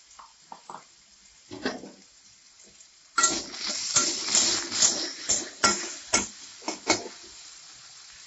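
Potato cubes frying in oil in a non-stick kadai, turned with a spatula: a few light taps, then from about three seconds in, several seconds of the spatula scraping and clacking against the pan over the frying sizzle.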